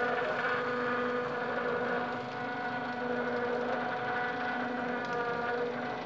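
Small electric motor of a homemade sawmill's power feed running steadily through a roller-chain and sprocket reduction, a steady hum with a whine above it. No speed controller is fitted yet, so it runs at one fixed speed.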